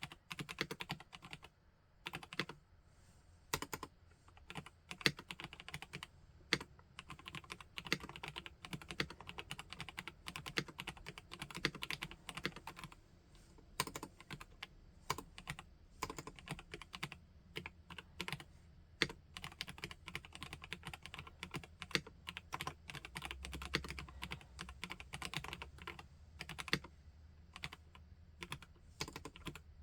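Typing on a PK x BIOI Command 65 custom 65% mechanical keyboard with Dolch keycaps: a continuous irregular stream of key clacks with short pauses, starting abruptly at the start.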